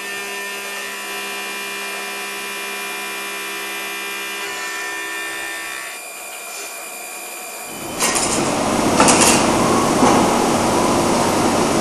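Optimum F100 TC CNC milling machine running, at first with a steady multi-tone whine. About eight seconds in, a louder, rough noise starts suddenly and carries on.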